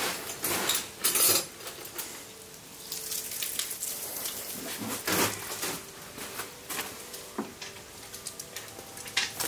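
Metal hand tools and sockets clinking and clattering in irregular knocks while they are handled and sorted through.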